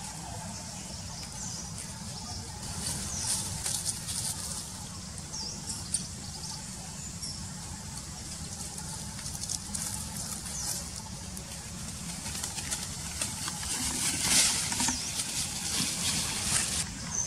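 Dry leaf litter rustling and crackling as monkeys move about on it, over a steady low rumble, with a few faint short high chirps. The rustling is loudest about fourteen seconds in, when a monkey comes right up close.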